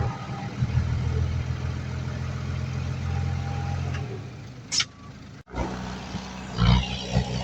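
Heavy-equipment diesel engine running steadily, its note dropping away about four seconds in; after a short sharp click and a sudden break, engine sound returns with a few louder thumps near the end.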